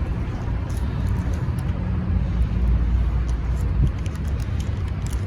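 Steady low rumble of a running car heard from inside, with faint crisp clicks of French fries being chewed.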